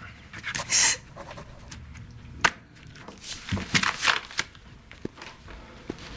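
A woman's breathless gasps and sobs in distress, with cloth and paper rustling and a single sharp tap about two and a half seconds in.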